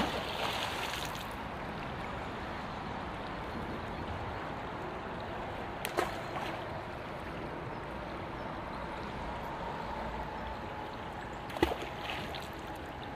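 Steady drone of road traffic, with a faint held tone, broken by three sharp knocks: one at the start, one about six seconds in and one near the end.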